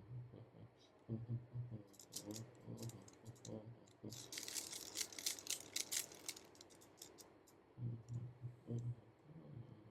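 Plastic Rubik's Cube layers being turned by hand, clicking, with a quick run of rapid clicks from about four to six seconds in.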